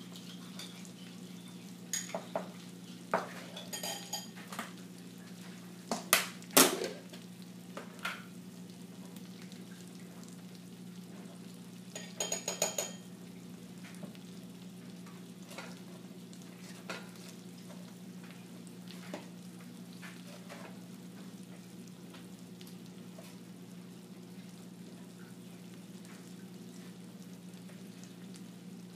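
Food sizzling as it fries in a pan over a steady low hum, with clinks and knocks of metal utensils against pans and dishes: a cluster of sharp clinks a few seconds in, the loudest at about six and a half seconds, a brief run of ringing metal strikes around twelve seconds, then only a few light taps.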